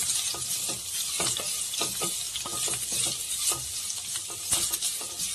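Diced beetroot and onion sizzling in sesame oil in a metal pan while a wooden spatula stirs them, scraping and tapping against the pan in quick, irregular strokes over a steady hiss.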